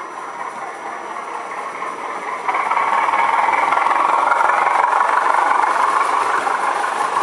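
Model Class 205 'Thumper' diesel multiple unit running with its Howes sound chip playing the diesel engine sound through the model's small speaker. It gets louder abruptly about two and a half seconds in as the train comes past close by.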